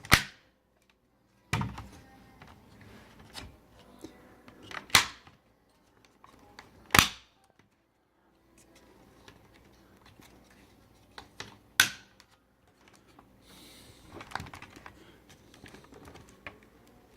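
Plastic fuse panel housing being snapped back together by hand: about five sharp plastic snaps spread several seconds apart, with lighter clicks and handling noise between.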